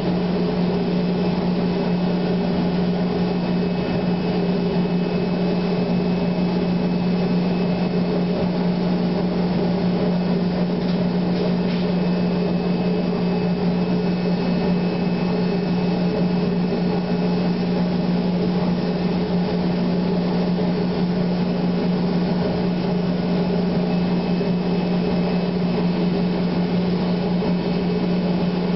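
C.R. Onsrud Panel Pro CNC router machinery running: a steady hum on one fixed pitch that holds even and unchanged throughout.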